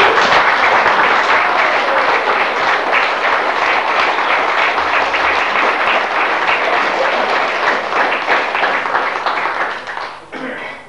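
A room full of people applauding, a dense steady clapping that dies away near the end.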